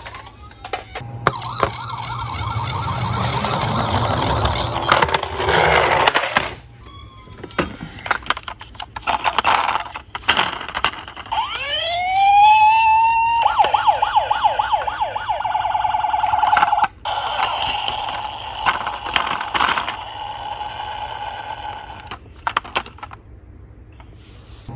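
Electronic toy sirens from battery-powered toy emergency vehicles: about halfway through, a siren sweeps upward and then switches to a fast warble that runs on for several seconds. Clicks and clatter of plastic toy cars being handled in a cardboard box.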